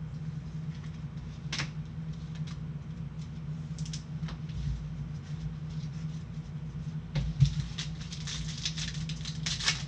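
Plastic wrapper of a trading-card pack crinkling as it is opened and handled: a few scattered rustles at first, then dense crackling from about seven seconds in, over a steady low hum.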